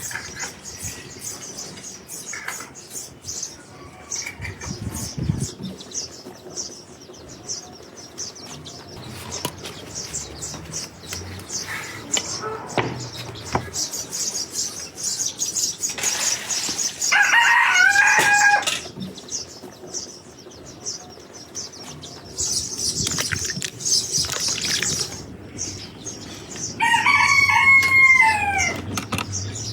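A rooster crowing twice, each crow about two seconds long, the second falling in pitch at its end, over a steady high hiss and scattered clicks.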